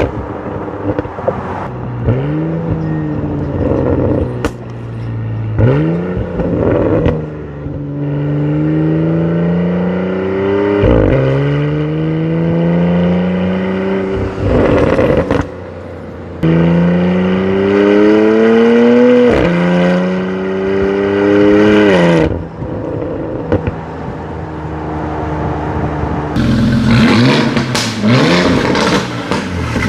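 2016 Porsche Cayenne GTS's twin-turbo V6 accelerating through the gears: the engine note climbs over a few seconds and drops sharply at each upshift, about seven times. Near the end a quick run of sharp crackles and pops comes from the exhaust.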